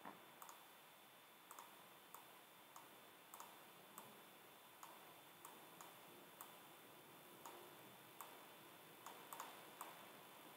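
Faint computer mouse clicks, about twenty at irregular intervals, some in quick pairs like double-clicks.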